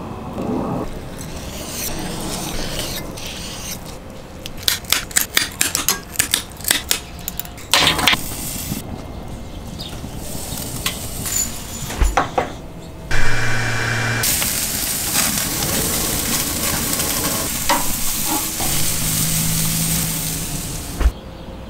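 Flank steak pinwheels searing on hot charcoal grill grates: a steady sizzle through the second half. Earlier there is a run of quick, sharp clicks and a few separate knocks.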